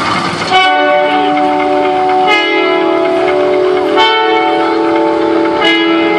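Clock chime bells striking four times, evenly spaced a little under two seconds apart. Each strike rings on and overlaps the next.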